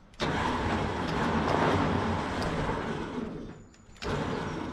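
Electric winch motor running, pulling on the line tied under the car; it starts suddenly, dies away about three and a half seconds in, and starts again just before the end.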